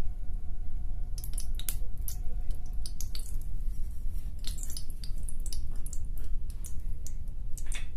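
Oil and ghee heating in an aluminium kadhai, crackling with scattered sharp pops that start about a second in, over a steady low rumble.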